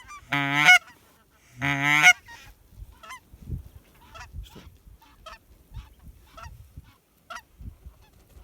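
Canada geese honking: two loud, close honks in the first two seconds, then many shorter, fainter honks from a flock overhead until near the end.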